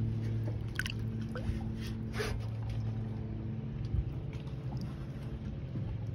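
Light water sloshing and a few small splashes as a large northern pike is held in the water by hand while it revives, over a steady low hum.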